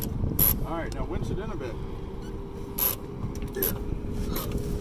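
Sailboat winch being cranked with a winch handle to haul in a sheet, with irregular mechanical clicks from its pawls and a few short squeaking glides about a second in.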